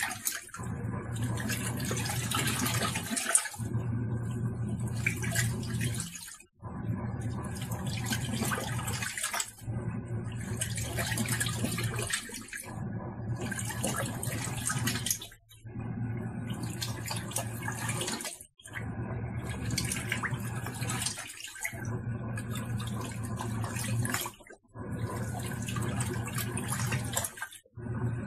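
Tangarus portable washing machine running a wash cycle: the motor hums and water churns in the tub. The sound stops briefly about every three seconds as the pulsator changes direction.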